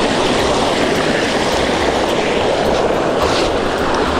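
Rocky mountain stream rushing steadily over and around stones close to the microphone.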